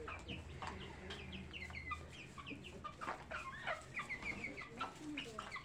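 Young chicks chirping as they feed: many short, high peeps that fall in pitch, scattered throughout, faint.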